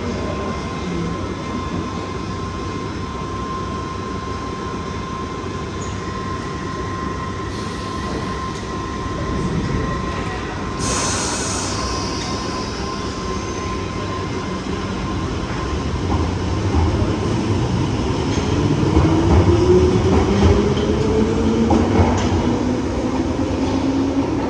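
London Underground 1973 Stock train standing with a steady tone, a short hiss about eleven seconds in, then pulling away: its motor whine rises in pitch and grows louder as it gathers speed.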